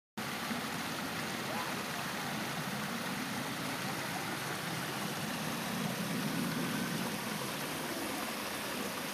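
Steady rushing outdoor background noise with no distinct events, cutting in abruptly just after the start.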